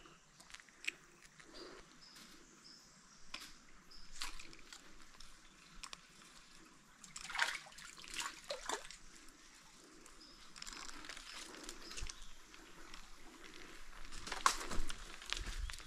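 Scattered rustles, brushes and small knocks of someone moving through rainforest undergrowth, with a few louder clusters about halfway through and near the end, over faint forest background sound.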